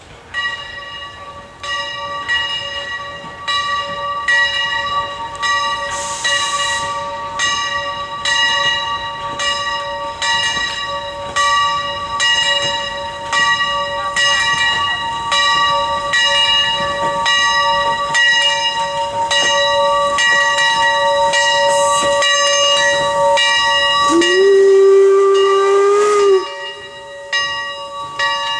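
Bell of a replica 1860s American-type 4-4-0 steam locomotive ringing steadily at about one and a half strokes a second as the train passes. There is a brief hiss of steam about six seconds in, and one whistle blast of about two seconds near the end.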